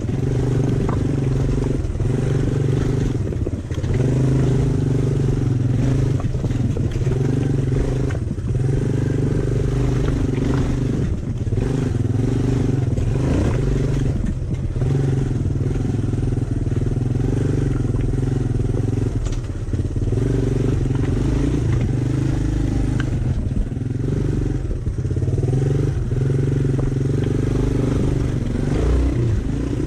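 Honda Fat Cat three-wheeler's single-cylinder four-stroke engine running at a steady pace, with irregular rattles and knocks from the machine over the rough ground.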